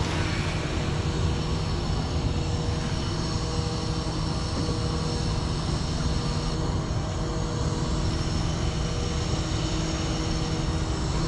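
Steady machinery drone: a low rumble with a few constant hum tones, unchanging throughout.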